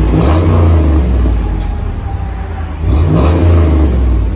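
2005 Dodge Dakota's 4.7-litre V8 revved twice through a dual exhaust with a Jones JFP glass-pack muffler and the factory resonator still fitted, the second rev about three seconds in. It is a deep exhaust note that is too quiet for the owner with the resonator on.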